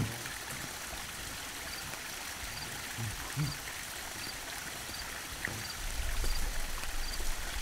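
Steady rushing noise like running water, with faint high ticks repeating a little more than once a second. A low rumble comes in about six seconds in.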